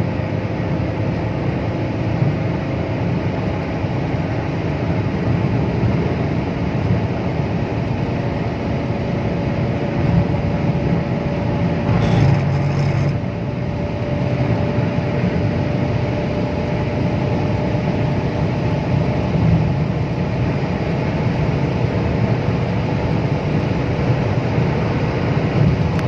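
Cabin noise of a Volkswagen Vento's 1.6 TDI four-cylinder diesel under way at about 3,000 rpm: a steady engine drone with road noise and a faint whine that rises slightly in pitch and then eases. A brief louder rustle comes about halfway through.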